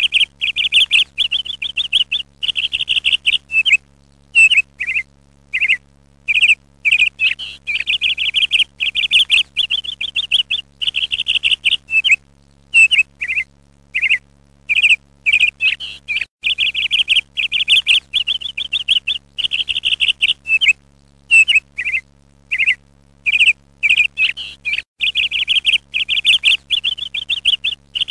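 Small songbird singing: phrases of fast trills and short chirps, each about a second long, separated by brief pauses.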